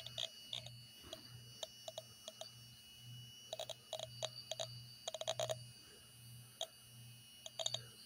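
Small loudspeaker driven by a homemade transistor amplifier, giving out irregular short electronic beeps and clicks, some in quick clusters, over a low hum that swells and fades about twice a second and a faint steady high tone.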